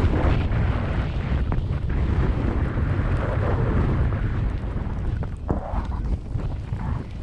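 Wind buffeting the microphone in a heavy rumble, over the hiss of a ride down through fresh powder snow that swells and fades every couple of seconds.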